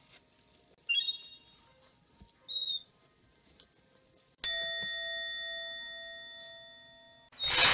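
Comic 'chiin' sound effect: a small bell, like a Buddhist rin, struck once and ringing out as it fades over about three seconds, a cue for dejection. Two short tinkly chimes come before it, and a loud splashing burst starts at the very end.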